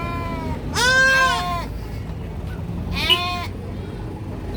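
Baby goat bleating: a high call trailing off just after the start, then two more high bleats about two seconds apart, the first of these the loudest.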